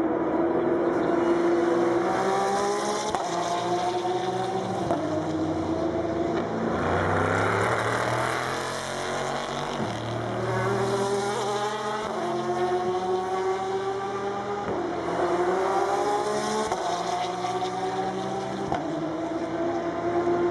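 Race cars accelerating out of a tight corner one after another. Their engine notes climb through the gears and drop back at each upshift, with several cars' engines overlapping.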